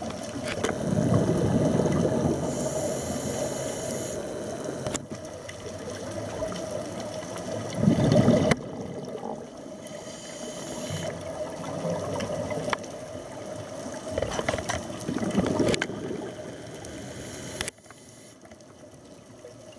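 A scuba diver's breathing heard underwater through a camera housing: exhaled bubbles rush out from the regulator in loud swells about every six or seven seconds, with quieter bubbling and hiss between, and a few sharp clicks.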